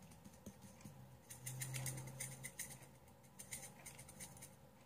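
Faint, scattered light ticks and rattles of crushed red pepper flakes being shaken from a spice jar.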